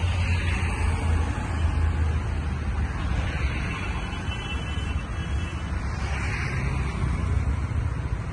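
Road traffic: a steady low rumble with several vehicles swelling past one after another.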